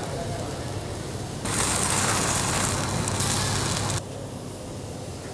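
Marinated chicken sizzling on a hot grill over a steady low hum. The sizzle turns much louder and brighter about a second and a half in, then drops back abruptly near the four-second mark.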